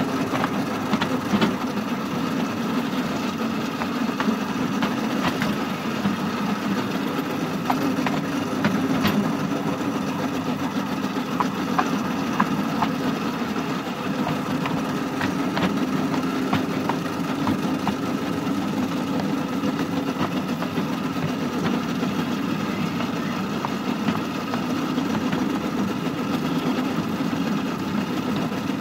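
Miniature railway shunter's engine running steadily, with scattered light clicks and knocks.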